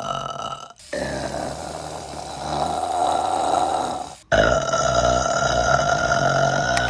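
A woman burping: long, drawn-out burps cut back to back, the sound breaking off abruptly twice between clips.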